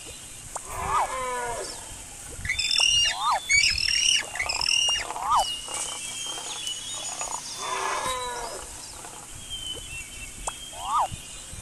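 A mix of animal-call sound effects: short chirps repeating every couple of seconds, a burst of high bird-like whistles a few seconds in, and longer falling cries about a second in and again near eight seconds.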